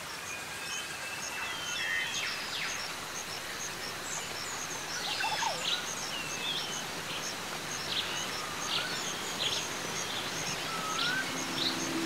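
Several birds chirping and calling over a steady background hiss: short whistled notes and rising or falling chirps, with one high note repeating evenly about twice a second.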